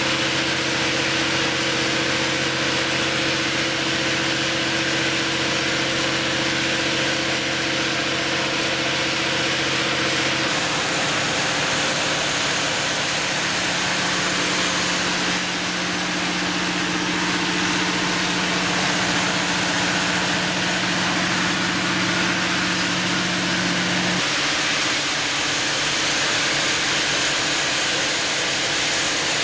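Generac 800 kW diesel generator set running at steady speed: a deep engine hum under a loud, even rush of cooling-fan air. The pitch of the hum changes abruptly about ten seconds in and again near the end, while the loudness holds steady.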